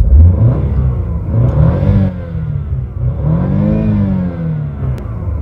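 BMW car engine revved twice while parked, its pitch climbing and falling each time. The second rev is the higher, toward about 6,000 rpm.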